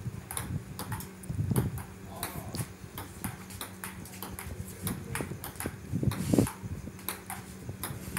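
Table tennis rally: the ball clicking sharply off the paddles and the table in a quick, irregular series of hits and bounces.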